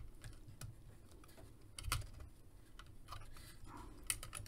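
Faint, scattered clicks and taps of hard plastic as the rotating boosters of a Zentraedi Battlepod toy are turned and handled, with a duller knock about two seconds in.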